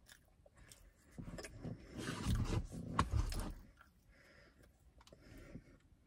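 Close-up eating sounds: biting into and chewing a piece of mochi donut, with handling noise and one sharp click about three seconds in.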